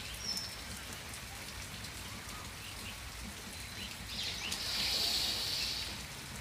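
Faint outdoor evening ambience: an even hiss with scattered faint chirps, and a louder hiss swelling for a second or so about four seconds in.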